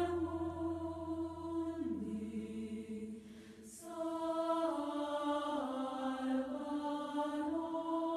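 Background music of a choir chanting long held notes that shift slowly in pitch. The music dips briefly about three seconds in, with a short airy swish.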